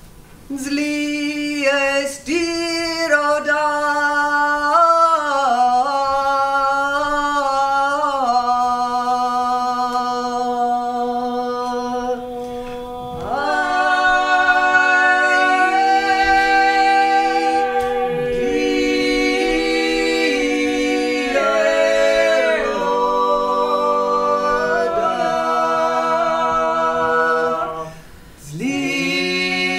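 Unaccompanied Georgian polyphonic singing. A single woman's voice starts the song, a low held note comes in beneath her about eight seconds in, and from about thirteen seconds further voices join in close harmony. They break off briefly near the end, then take up the song again.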